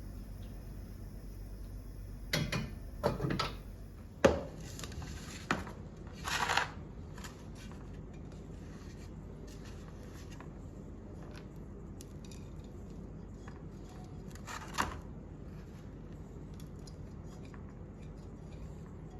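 Cooking handling sounds over a low steady background: a few short knocks and scrapes in the first several seconds, one more about two-thirds of the way through, then only faint scattered ticks.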